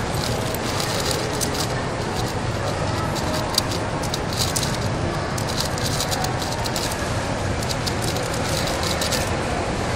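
Plastic 3x3 speedcube being turned fast, a rapid irregular run of small clicks and clacks, over a steady rushing background noise.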